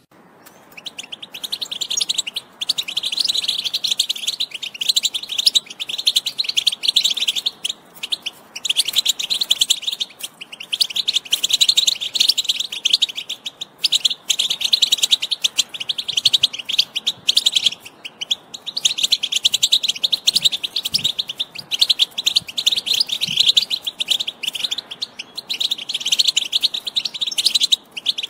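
European goldfinch singing: a fast, continuous twittering song of rapid chirps and trills in long phrases, broken by brief pauses every few seconds.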